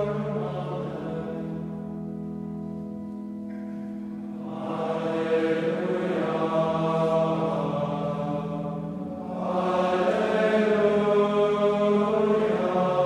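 Male choir chanting Gregorian psalmody in unison, the voices holding one reciting note for long stretches. The singing grows louder about four and a half seconds in and again about nine and a half seconds in.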